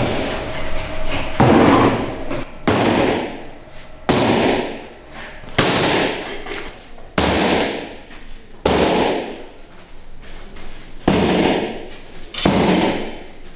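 A run of heavy knocks or slams, about nine of them, one every second and a half or so. Each starts sharply and echoes for about a second in a large, hard-walled workshop.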